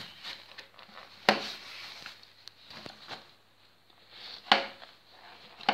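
Handling noise of the unicycle and the camera close up: a low rustle with scattered clicks and three sharp knocks, the first about a second in, the second past the middle and the last at the very end.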